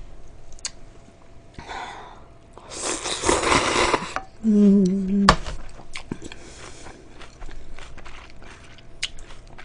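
A woman slurping cold noodles and chilled broth from a bowl: one loud slurp of about a second and a half near the middle, after a fainter one, then a short hummed 'mm' and small clicks of chewing.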